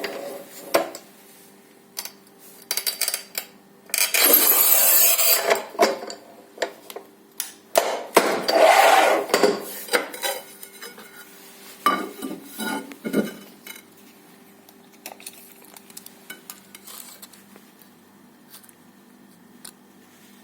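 Matrix 900 manual tile cutter being handled: sharp metal and ceramic clicks and clatter, with two longer scraping runs of a second or two each, about four and eight seconds in. More knocks follow, then only faint ticks.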